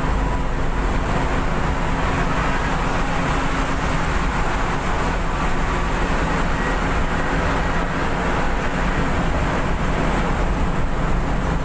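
A bus's engine running and road and wind noise at highway speed, heard from inside the driver's cab as one steady drone.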